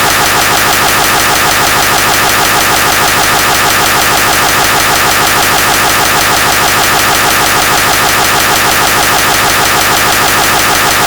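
Loud, harsh sound effect: a steady, rapidly pulsing buzz that fills the whole range from deep to very high, unchanging throughout.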